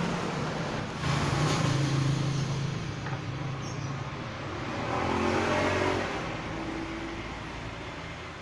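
Motor vehicles passing on a road, their engine noise swelling twice and then fading.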